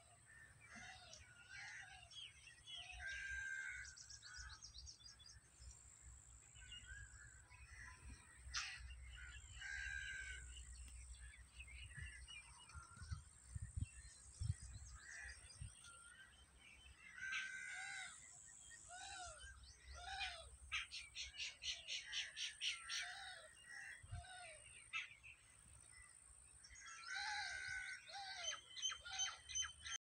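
Several birds calling and chirping at once: short chirps, repeated arched call notes, and about two-thirds of the way through a fast, even run of rapid notes. A faint low rumble sits underneath.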